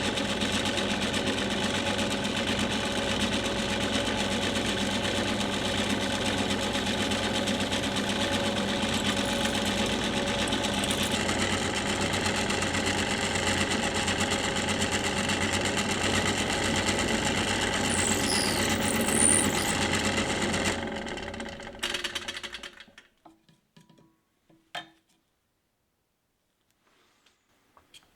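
Electric power tool motor running steadily, then switched off about three quarters of the way through and spinning down over a couple of seconds, followed by a few small clicks.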